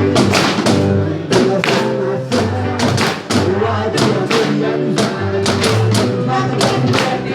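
Live music from a percussion ensemble playing drums made from recycled cans and buckets, with a steady beat of sharp strikes over sustained pitched accompaniment.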